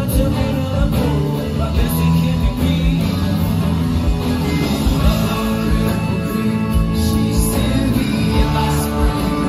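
Rock music with singing, guitar and drums.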